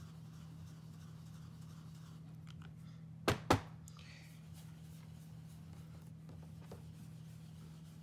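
Blending brush rubbing faintly over cardstock, with two sharp taps about a quarter second apart a little after three seconds in. A low steady hum sits underneath.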